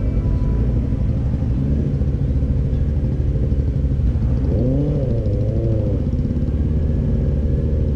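Benelli 600 GT motorcycle's inline-four engine running steadily as it rides through a flock of sheep. One wavering sheep bleat rises and falls about five seconds in.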